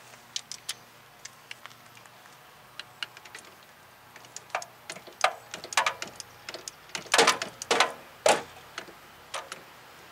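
Socket ratchet clicking in short, irregular strokes as a rear brake caliper bracket bolt is run in. A few louder metallic knocks come about three-quarters of the way through.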